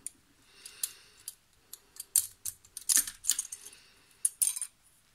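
Small, sharp clicks and rattles of a toy model car's plastic and metal parts as it is taken apart by hand, the white plastic interior being pulled out of the red body, several separate clicks a second or so apart.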